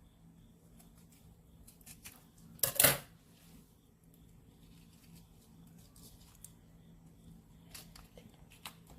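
Flakes for a slime kit being shaken out of a small packet into a container: a few light clicks and one brief, loud rustling burst about three seconds in.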